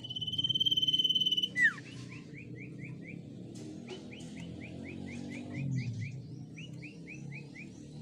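Common iora (sirtu) singing: one long, steady high whistle, a sharp downward slur, then three runs of short repeated notes at about four a second.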